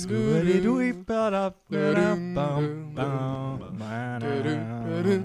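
Male voices singing wordless close harmony: a held low bass note under upper voices that slide between notes, with a brief break about a second and a half in.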